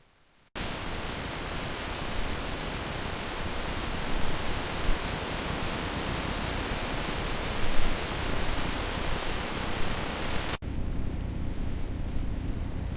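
Steady rain, an even hiss that starts suddenly about half a second in. Near the end it cuts to a duller rushing noise with more low rumble, like wind-driven rain.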